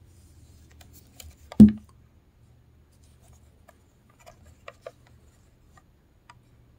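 Handling noise from a small plastic portable radio being turned over in the hand: one sharp thump about a second and a half in, then a few light clicks and taps.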